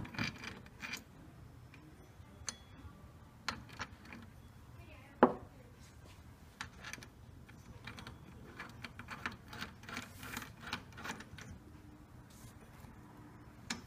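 Small metal parts clicking and clinking as an idler pulley and its bolt are handled and fitted onto a supercharger belt tensioner bracket on a wooden workbench. A single sharp knock about five seconds in, and a run of quick light clicks in the second half.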